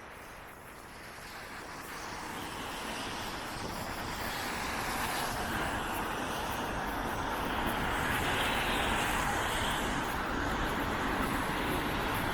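Road traffic on a wet road: a steady rushing of tyres and engines that swells louder over the first several seconds and then holds.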